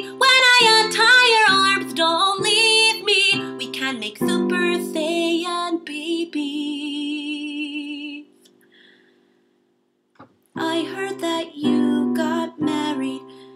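A woman singing a love song over electronic keyboard accompaniment, ending a line on a long held note with vibrato that fades away about eight seconds in. After about two seconds of silence, the accompaniment and singing start again.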